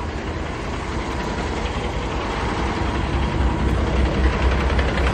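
A 2018 Peterbilt truck's diesel engine idling steadily, with a deep low rumble.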